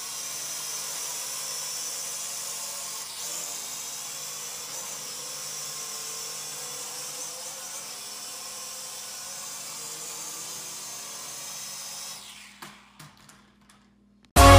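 Snaptain S5C toy quadcopter's motors and propellers whirring in a steady high-pitched whine as it flies. The whine dies away about twelve seconds in as it comes down, with a few faint knocks. Loud electronic dance music starts right at the end.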